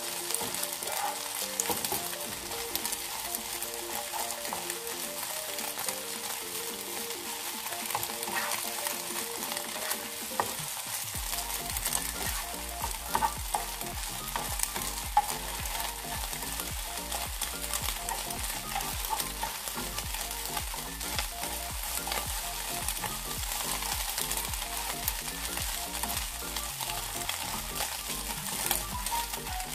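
Beaten eggs sizzling in a nonstick frying pan as a silicone spatula stirs and breaks them into scrambled pieces, with a steady hiss and occasional sharp taps and scrapes of the spatula on the pan.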